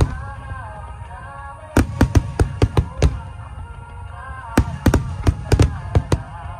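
Aerial firework shells bursting in rapid clusters of sharp bangs over music with a melody. The bangs are the loudest sounds: one at the start, a run of about seven from just under two seconds to three seconds in, and another run from about four and a half to six seconds in.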